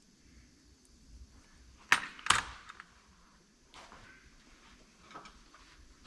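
Two sharp metallic snaps about half a second apart, then a few faint clicks, from a hand crimper's screw cutter being worked on a small 4-40 machine screw.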